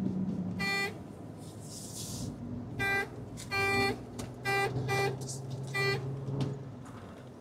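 Six short electronic beeps, all at one steady pitch and irregularly spaced, over the low steady hum of a truck engine heard from inside the cab.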